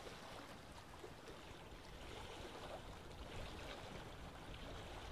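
Faint, steady stream ambience: water flowing gently, with no distinct events.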